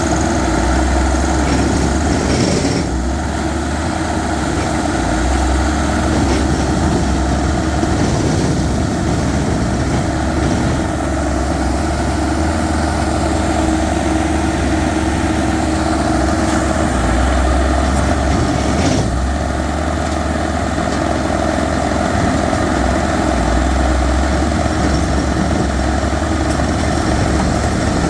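Rock core-drilling machine running steadily while boring into hard rock: a continuous loud mechanical drone with a steady hum underneath.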